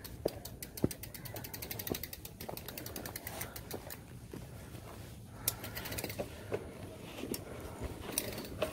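Mountain bike's rear freewheel hub ticking in a quick even run of clicks as the wheel turns without pedalling, with a few louder knocks from the bike jolting over the dirt.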